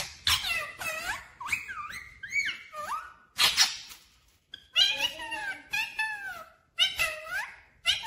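Rose-ringed parakeet (Indian ringneck) chattering in a run of short, high-pitched phrases whose pitch slides up and down, with brief pauses between them.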